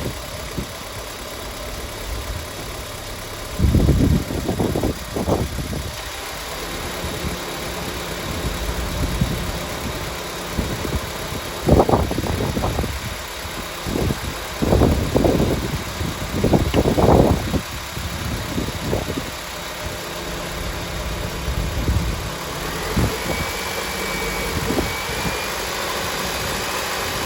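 Car engine idling steadily with its electrical system loaded (headlights, defroster, radio and heaters switched on) for an alternator charging test. Several louder, irregular noises come about four seconds in and again around the middle.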